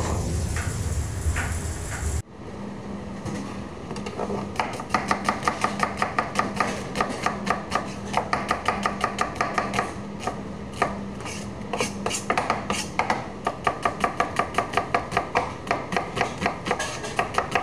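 A kitchen knife slicing a red onion on a plastic cutting board: quick runs of sharp knife strokes, about four a second, from about four seconds in. Before that, about two seconds of rumbling noise as the camera is handled, which stops suddenly.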